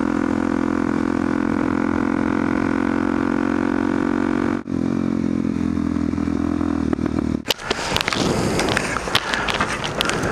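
Motorcycle engine running at a steady cruising speed, heard from the bike. About seven and a half seconds in it cuts off abruptly, and rustling, clicking and knocking noises follow.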